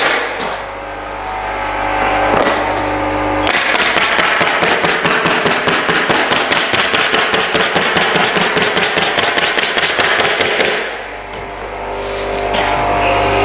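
A stapler firing staples into plywood underlayment in quick succession, several shots a second for about seven seconds, as a seam is fastened about every inch. A few single shots come before the rapid run, with a steady low hum underneath.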